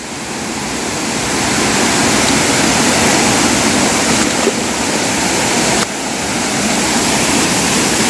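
Waterfall rushing: a steady, loud wash of falling water that grows louder over the first two seconds, with a sudden slight drop in level about six seconds in.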